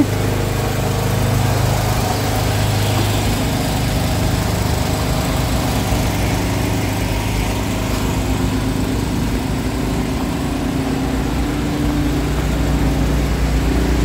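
Motor-driven water pump running steadily with an even hum, pumping flood water out of a flooded basement.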